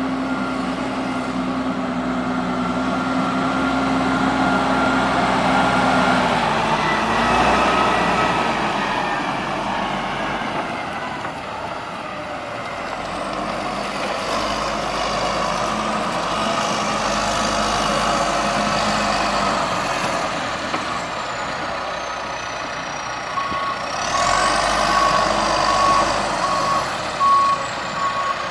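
John Deere 310SJ backhoe's diesel engine running, its pitch steady at first and then rising and shifting, with a high whine that rises and falls. In the last few seconds the machine's backup alarm beeps steadily.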